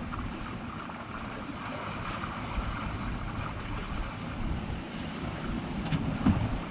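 Wind buffeting the microphone over the sea washing past the hull of a sailing yacht under way.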